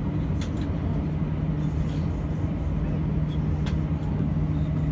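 Steady drone inside an airliner cabin on the ground, the engines and cabin air running with a constant low hum. Two faint clicks cut through.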